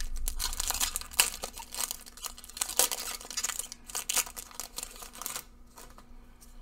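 Magic: The Gathering draft booster pack's foil wrapper being torn open and crinkled by hand, a quick run of crackles that dies down about five seconds in.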